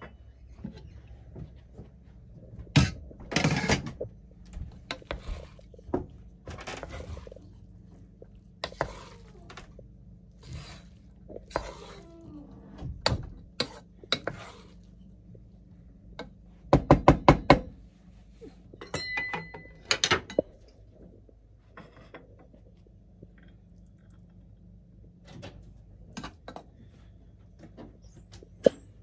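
Spoons scraping and knocking in a non-stick pot of cooked rice pilaf as it is fluffed and dished out onto a platter, in scattered short knocks and scrapes. A bit past halfway comes a quick run of about eight sharp taps.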